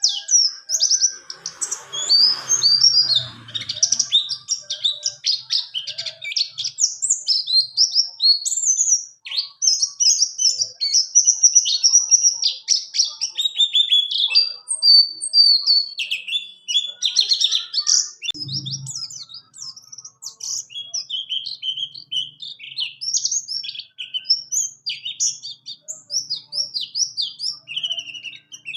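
Buxtoni white-eye singing a long, rolling song of rapid, high chirps and twittering trills that barely pauses. A faint low thump comes about two seconds in and again past the middle.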